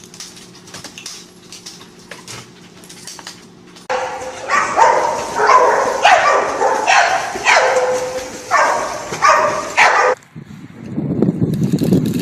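A dog barking in a rapid string of about ten barks, each dropping in pitch. It starts suddenly a few seconds in and stops short. A low rumble follows near the end.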